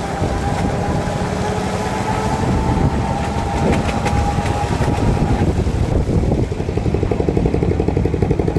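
Small vehicle engine running, heard from aboard a motorized three-wheeler. A fast, even putter comes in over the last two seconds.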